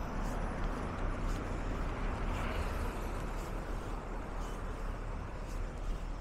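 Steady road traffic noise from cars, vans and a motorcycle going by on a city street, with faint ticks about once a second.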